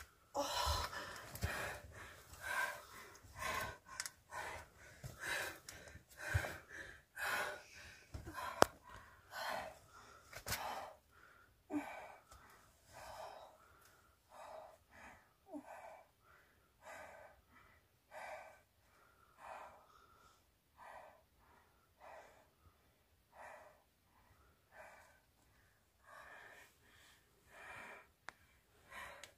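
A woman's heavy, pained breathing: ragged and louder for the first ten seconds or so, then slower and quieter at about one breath a second.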